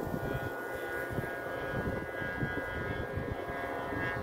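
Strong gusty wind rumbling on the microphone, under a steady drone of several held pitches.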